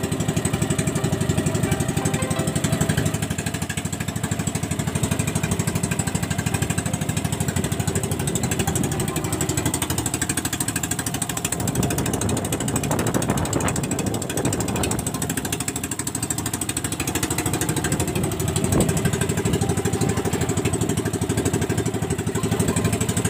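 Engine of a motorized outrigger boat running steadily under way, a fast even chugging.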